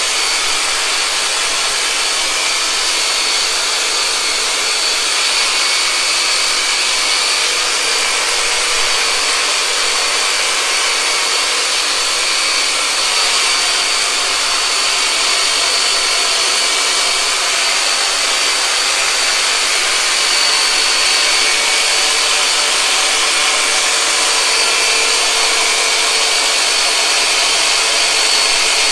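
Handheld electric massage device (the "Turbonator") running continuously: a steady high-pitched motor whine over a hiss.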